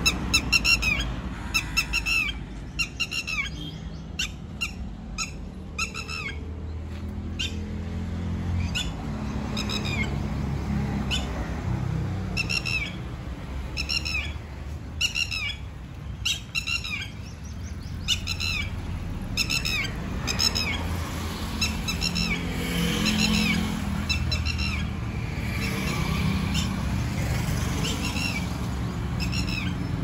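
Red-wattled lapwing calling repeatedly, sharp high notes in quick runs, over a steady low rumble of road traffic.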